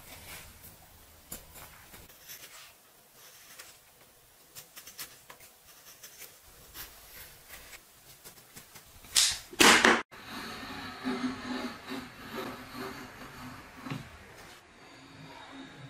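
A flat chisel paring thin shavings from a small wooden block by hand: light scattered clicks and scrapes, then two louder scraping strokes just before ten seconds in. The sound then cuts off abruptly to a different recording, where scattered scrapes of a blade shave a wooden handle held in a vise.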